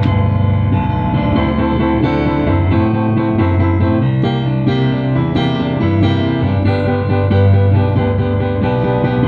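Digital piano played with both hands: a run of sustained chords over a moving bass line.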